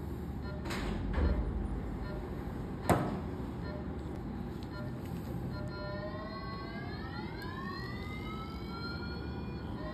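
Phacoemulsification machine's aspiration tone during irrigation and aspiration: from about six seconds in, a pitched tone glides steadily upward as the vacuum builds, then drops and starts rising again near the end. A sharp click about three seconds in, over a steady low hum.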